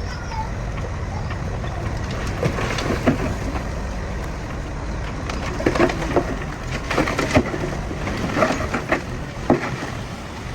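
Bulldozer pushing earth over a steady low engine rumble, with a run of sharp cracks and crunches from material breaking under the blade, thickest in the second half.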